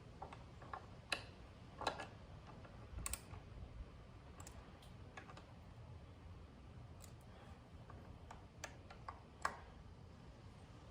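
Scattered light clicks and taps at an uneven pace, with a few sharper ones about a second and two seconds in, around three seconds, and near the end.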